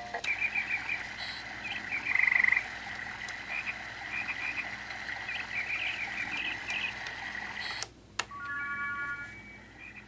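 Electronic speaker of a Rainforest baby toy bar playing its jungle nature sounds: repeated short chirping calls and a loud buzzy frog croak about two seconds in. Near the end the sounds cut off suddenly, followed by a click and a few short electronic tones.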